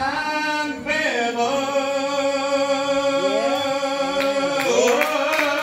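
A man singing a gospel song. He holds one long note through the middle, with sliding vocal runs around it toward the end.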